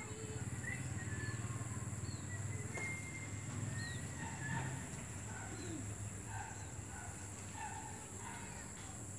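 Outdoor ambience with scattered short bird chirps and whistled calls, over a steady high-pitched whine and a low hum.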